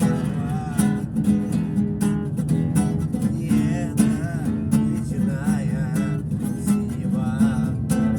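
Music: strummed acoustic guitar with a wavering lead melody, an instrumental passage between sung verses.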